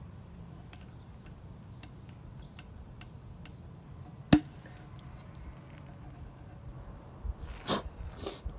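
Faint scattered clicks of small metal scooter headset parts being handled, with one sharp click about four seconds in and a few brief scrapes near the end.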